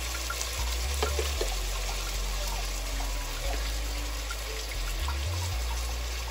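Chopped tomatoes, fried onions and ginger-garlic paste sizzling in hot oil in a cooking pot: a steady hiss with a few small scattered pops over a low hum.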